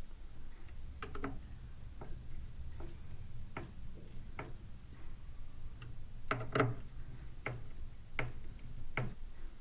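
A hand screwdriver with a T25 bit tightening screws into a ski: scattered short clicks and taps at irregular intervals, the loudest pair about six and a half seconds in.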